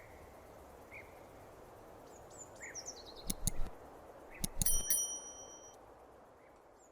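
Quiet outdoor background: faint small-bird chirps, a few sharp knocks about three and four and a half seconds in, and a brief bell-like ringing tone just after the second knocks, fading out toward the end.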